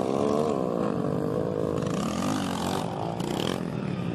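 Small motorcycle engine revving up and down while the rider holds a wheelie, its pitch rising and falling several times.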